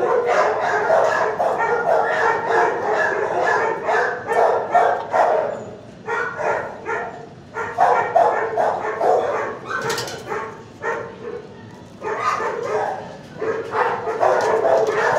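Shelter dogs barking continuously, with many short overlapping barks. The barking eases off twice, around six to seven seconds in and again around eleven seconds, and there is a sharp click about ten seconds in.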